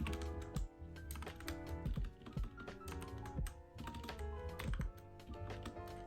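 Mechanical keyboard typing: irregular key clicks and clacks in quick runs with short pauses, over soft background music with held notes.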